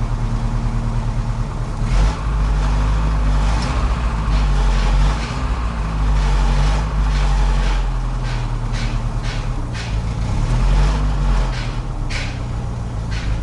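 Ford Transit's 1.6-litre petrol engine running, noticeably quieter now, with a slight knock left that is most likely from the camshaft. Several short clicks come through it.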